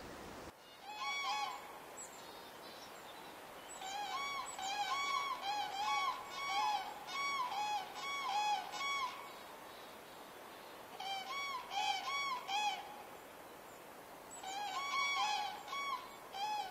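Common cranes calling in flight: bouts of short trumpeting calls, about two a second, with pauses between bouts.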